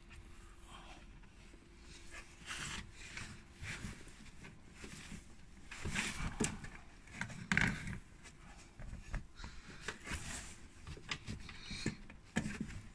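Handling noise from hands working in a car's engine bay: scattered rustles, light knocks and clicks as plastic retaining clips for the scuttle gasket are pushed into place, the loudest knocks a little past the middle.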